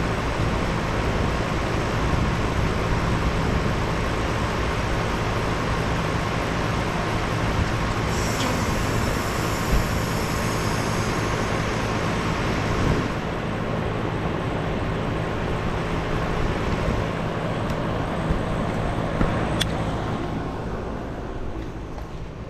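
2018 Aire-Flo 4HP15 heat pump outdoor unit running steadily as it shifts into defrost. About ten seconds in, the reversing valve switches with a click, inside a high hiss of refrigerant that lasts a few seconds. After that the running sound settles a little lower.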